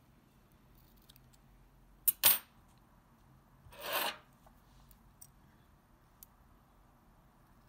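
Small scissors cutting ribbon: two sharp snips close together about two seconds in, then a short rubbing rustle about two seconds later, with a couple of faint ticks afterwards.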